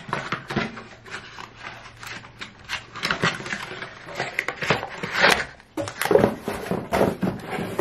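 Cardboard packaging rustling and scraping, with scattered small clicks and knocks, as a toy is worked out of its box.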